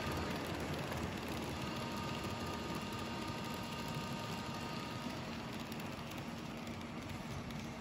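An N-scale model freight train's cars rolling along the track, making a steady rolling noise with a faint whine that dies away about five seconds in.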